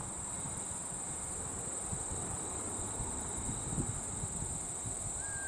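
A steady, high-pitched chorus of insects, with low wind rumble on the microphone and a short whistle near the end.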